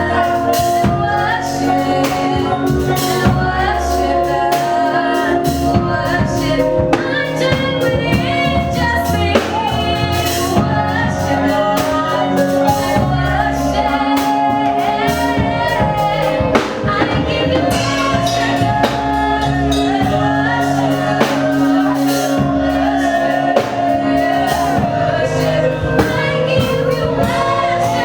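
Gospel worship song: singing led by a woman's voice over held instrumental chords and a steady drum beat.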